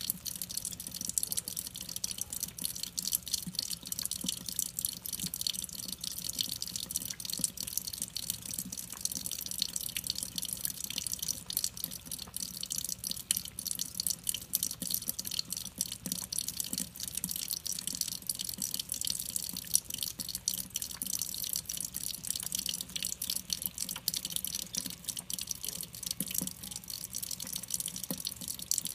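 Thin stream of water running from a kitchen faucet's pull-down spray head and splattering into the sink, a steady trickle with a dense patter of drips.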